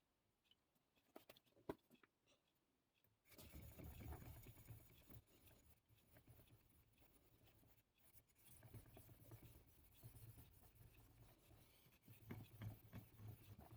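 Yanagiba blade being stroked on a Naniwa 3000-grit whetstone, a faint irregular scraping that starts about three seconds in after a few light clicks.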